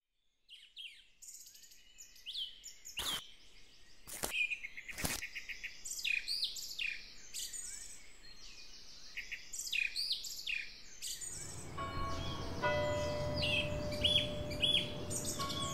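Small birds chirping and trilling in quick high calls, with three sharp clicks in the first few seconds. About eleven seconds in, background music comes in under the birdsong.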